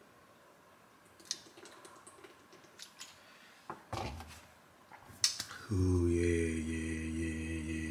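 A plastic water bottle handled with faint clicks and set down on a counter with a soft knock about four seconds in. Then a man's long, low vocal groan held on one pitch for about two and a half seconds, dropping slightly as it ends.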